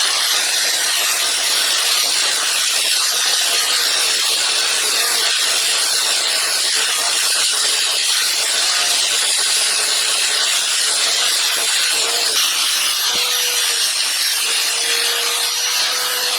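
Flap disc on a power grinder, grinding rust and pitting off a pair of steel Fuller linesman's pliers. It is a loud, steady grinding hiss with the motor's whine underneath, running without a break.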